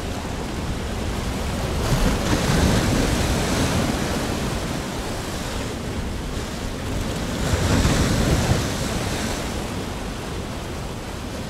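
Ocean surf: a steady rush of breaking waves and churning foam, swelling louder twice, about two seconds in and again about eight seconds in.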